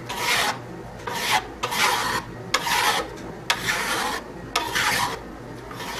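A coarse file rasping across the edge of a steel cabinet scraper blade held in a vise, in about six even strokes roughly a second apart. This is the first filing pass to straighten and square the edge.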